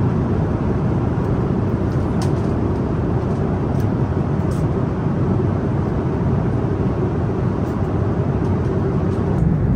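Steady in-flight cabin noise of an Airbus A330-900neo airliner: an even, low rush of airflow and engine noise heard from inside the cabin.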